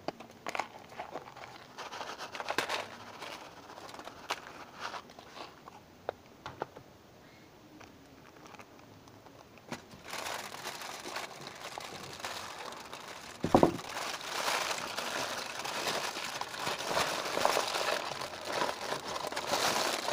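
Scattered crinkles of a plastic snack packet being handled, then, about ten seconds in, aluminium foil being unwrapped and crumpled continuously. A single thump sounds partway through the foil handling.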